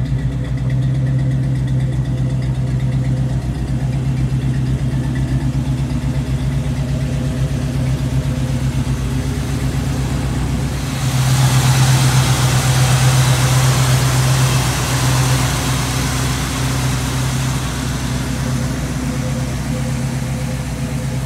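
A 1971 Chevrolet C10's V8 idling steadily through dual exhaust with Flowmaster-style mufflers. A louder hiss rises for about five seconds in the middle.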